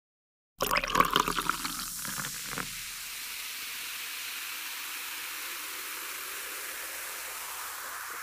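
Intro title sound effect: it starts suddenly with a burst of rapid crackling for about two seconds, then settles into a steady hiss.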